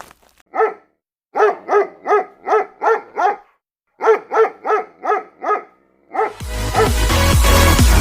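A dog barking: one bark, then two quick runs of about six barks each, about three a second, with a short pause between, and one more bark. About six seconds in, electronic dance music with a heavy bass beat starts.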